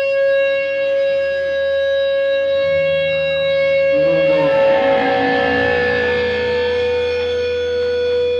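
Live electric guitar holding one long, steady sustained note. About halfway through, more held notes from the band join and swell into a dense, loud wash of distorted sound.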